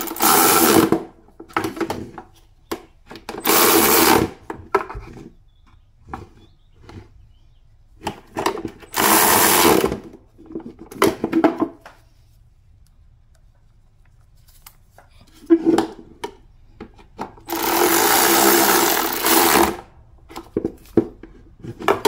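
Cordless power driver running in four short bursts of about a second each, the last nearly two seconds long, as it drives in the bolts that fasten a mass airflow sensor to the air filter box lid. Short clicks and knocks of plastic handling come between the bursts.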